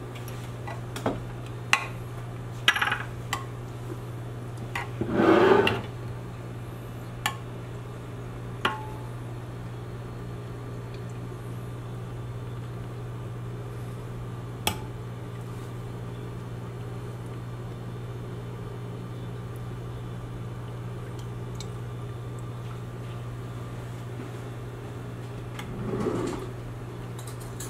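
Light clinks and taps of a glass cup and metal spoon being handled, scattered through the first several seconds, with a short scrape about five seconds in. A spoon scrapes in a glass jar of syrup near the end, and a steady low hum runs underneath throughout.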